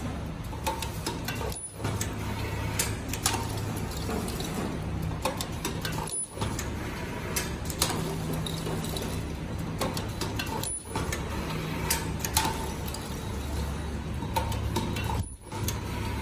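Automatic zipper machine running: a steady low hum with irregular mechanical clicks and clacks over it. The sound breaks off briefly about every four and a half seconds.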